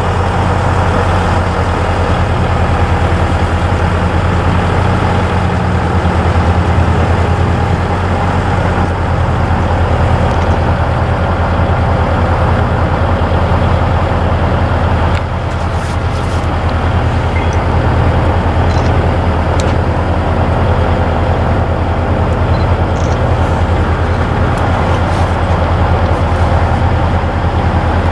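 Diesel engine of a KiYa 95 measuring train idling: a steady low hum that dips slightly about halfway through.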